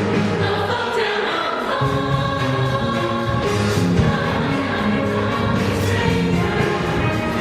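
Music with a choir singing held notes over an accompaniment. The bass drops out for about a second and comes back near two seconds in.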